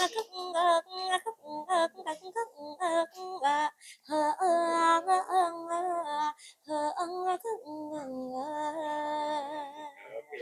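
A young woman singing a Thai song unaccompanied into a handheld microphone, in phrases of long held notes with a wavering pitch, separated by short breaths.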